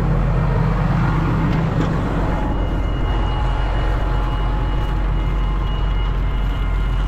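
Tractor engine running steadily, driving a mounted field sprayer's pump, which is being run on plain water as a leak test. A thin, steady high whine comes in about a third of the way through.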